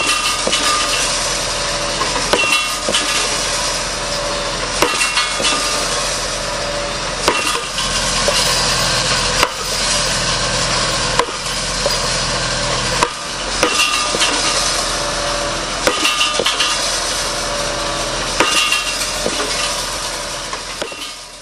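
Tractor-mounted three-point-hitch post driver hammering a wooden fence post into the ground: sharp, heavy blows every couple of seconds, some in quick clusters, over the steady running of the tractor engine.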